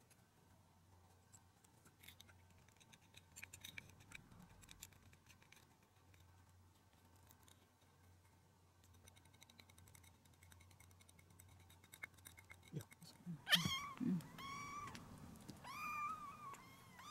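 Faint clinks of a plastic spoon and ceramic dishes being handled, then, about two-thirds of the way in, a one-month-old kitten meowing loudly again and again in short, high cries as it is held in a towel and syringe-fed medicine.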